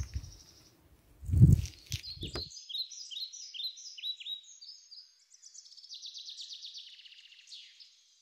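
Songbird singing: a run of short, high, down-slurred notes, then a fast buzzy trill. Before the song, a low rumble on the microphone, loudest about a second and a half in.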